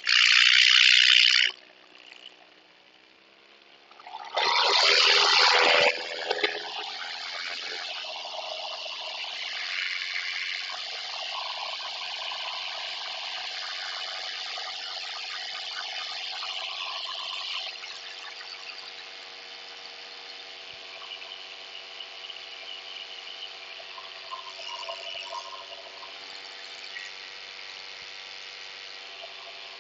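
Paramotor engine and propeller running steadily under a rushing noise of wind on the microphone. Two loud bursts of rushing noise come in the first six seconds: one at the very start and one about four seconds in.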